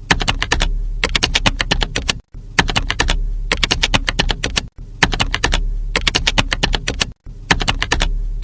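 Fast typing on a computer keyboard: rapid runs of key clicks over a low steady hum. The runs break off to silence for a moment three times, about every two and a half seconds, as a looped sound effect does.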